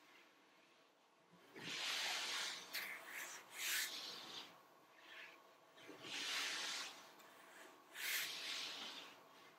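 Soft breathy swishes from a person lying on a yoga mat: her breathing and her arm brushing along the mat as it sweeps. There are four of them, a couple of seconds apart.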